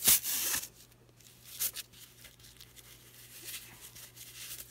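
Knit sock fabric rustling as it is pulled right side out by hand: a loud rustle at the start, a shorter one about a second and a half in, then faint handling.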